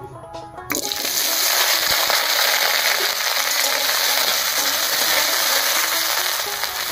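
Cubed potatoes dropped into hot mustard oil in a karahi, starting to sizzle suddenly under a second in and then frying with a steady hiss.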